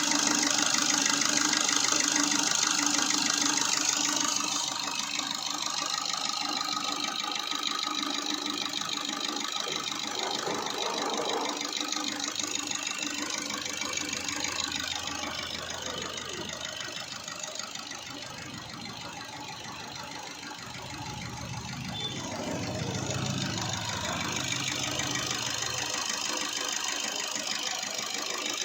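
Freshly overhauled Maruti Suzuki Ciaz four-cylinder diesel engine running at idle, a steady, even mechanical beat that is loudest for the first few seconds.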